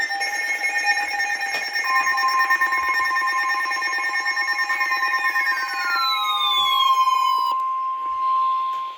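Weather radio receivers sounding an alert: several steady and pulsing beep tones, one sweeping downward between about five and seven seconds in. The NOAA Weather Radio warning alarm tone, a steady high tone, joins about two seconds in and continues after most of the others cut off. This is the alarm that heralds a severe thunderstorm warning broadcast.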